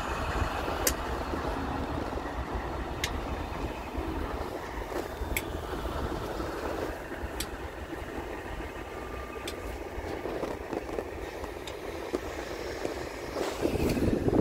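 Steady low engine rumble, with light sharp ticks about every two seconds. A louder rush of wind noise builds in the last second.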